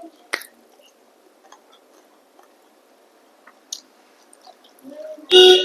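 Quiet chewing with a few sharp mouth clicks, then near the end a single short, loud throat-clearing cough.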